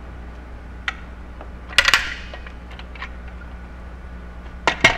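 Sharp metallic clicks and clatters from a handheld caulking gun being worked: single light clicks, a loud cluster about two seconds in, and two loud clicks near the end.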